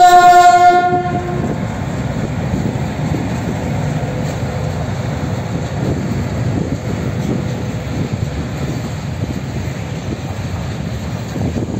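BR232 ("Ludmilla") diesel locomotive sounding one horn blast of a little over a second right at the start, the loudest sound here. After it comes the steady rumble of the locomotive and its freight wagons rolling past on the track.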